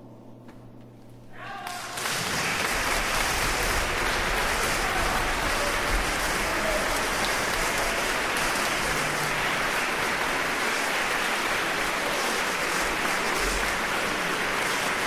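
The final chord of a music performance fades out, then audience applause breaks out about two seconds in and continues steadily.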